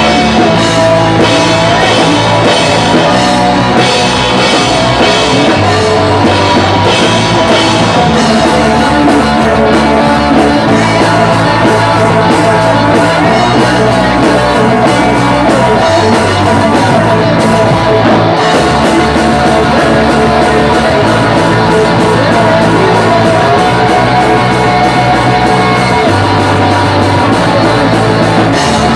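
Pop-punk band playing loud and without a break: drum kit with cymbal wash, distorted guitars and bass, with sung and shouted vocals.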